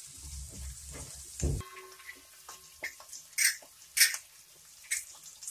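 Onions, garlic and dried red chillies frying in oil in a metal kadhai. A low rumble runs through the first second and a half, then scattered sharp pops and crackles follow.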